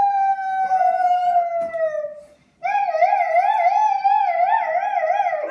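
Young children imitating a police siren with their voices: a long rising 'woo' that slowly falls, with a second voice joining briefly, then after a short break a wavering wail that rises and falls about twice a second.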